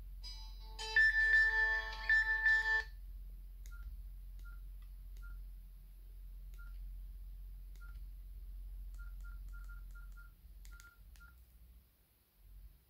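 A Nokia 6700 Slide's loudspeaker plays a short message-tone preview in two quick melodic phrases, then gives about a dozen short, identical keypad beeps as its menus are stepped through, some in quick succession. A low steady hum lies underneath.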